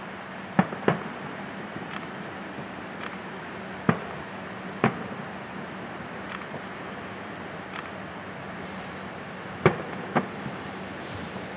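Aerial firework shells bursting at a distance: six sharp bangs, mostly in close pairs, over a steady background hiss.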